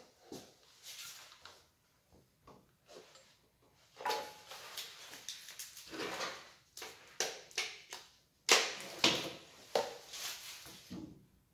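Hands handling a small portable air compressor and its fittings on a wooden workbench: scattered clicks, rustling and knocks, busier in the second half, with one sharp loud knock about three-quarters of the way in. The compressor is not running.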